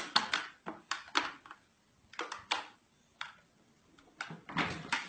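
Large plastic jug of beer handled in the hands: a string of sharp clicks, knocks and crinkles from the plastic, then a longer sloshing rush near the end as the jug is swung up to drink.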